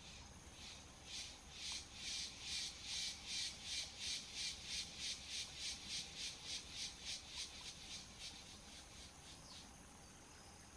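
A cicada's pulsing song: a high, hissing rhythm of about three pulses a second that swells, then fades away over roughly eight seconds.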